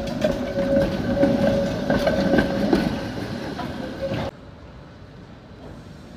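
Tram passing close by: a steady high whine, with the wheels clicking over the rails. About four seconds in the sound drops suddenly to a much quieter background.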